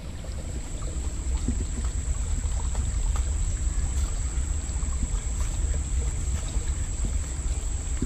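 Shallow rocky creek trickling over stones, under a steady low rumble of wind on the microphone.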